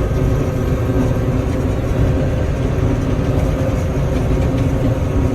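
John Deere 9500 combine running steadily, a constant low engine drone with a steady hum over it.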